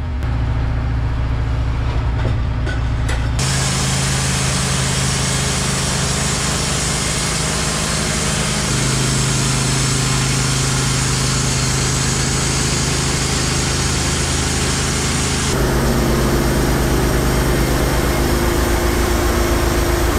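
Wood-Mizer LT15 portable bandsaw mill running steadily, its engine holding speed while the band blade saws through an eastern white pine log. The sound turns much brighter and hissier about three seconds in.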